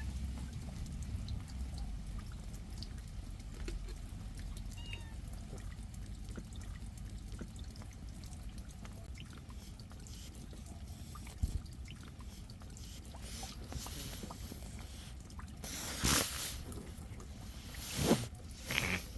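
Rain dripping and trickling steadily. A few louder brushing, rustling bursts come near the end.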